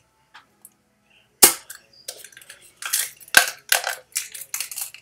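An eggshell being cracked open by hand: two sharp knocks about two seconds apart, with short crunching and crackling noises of the shell breaking apart.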